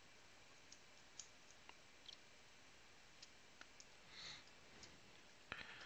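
Near silence with faint, scattered clicks and a brief soft rustle about four seconds in: basketball trading cards being handled and flipped through by hand.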